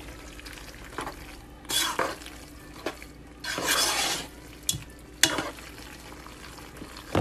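Thick macaroni and cheese being stirred in a pot with a utensil: several short bursts of wet mixing noise, with a few light clicks of the utensil against the pot.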